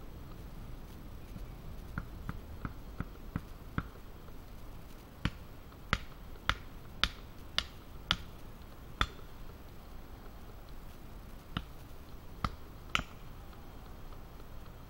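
Hatchet striking and splitting small pieces of wood on a log chopping block. A run of light, quick taps comes first, then a string of heavier blows about two a second, then a few more near the end.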